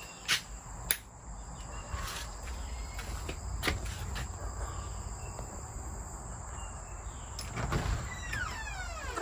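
Outdoor ambience with faint insect chirps and several sharp clicks in the first few seconds. Near the end a loud wail slides steeply down in pitch.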